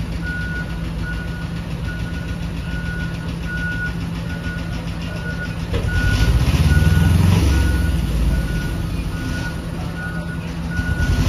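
Heavy truck hauling a low-loader trailer: its diesel engine runs steadily while a warning beeper sounds about twice a second. The engine grows louder about six seconds in, eases off, and rises again near the end.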